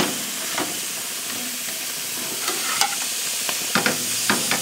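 Ham steaks sizzling on a hot infrared gas grill running wide open, a steady hiss, with a few short clicks and scrapes of a metal spatula on the grate as the steaks are pushed into place.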